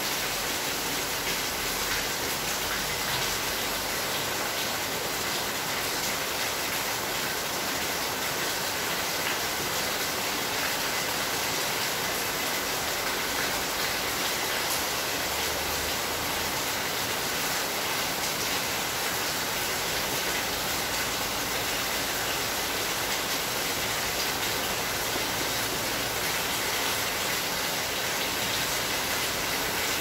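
A steady, even hiss with no distinct knocks or tones.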